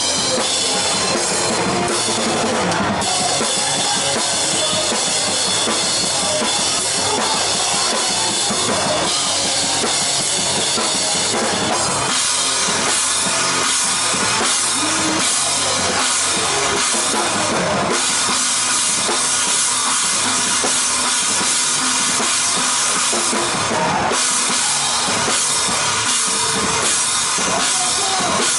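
A rock drum kit played live with a band, heard up close: kick drum and snare under constant cymbal wash. About twelve seconds in the song moves to a section where the cymbals ride over everything.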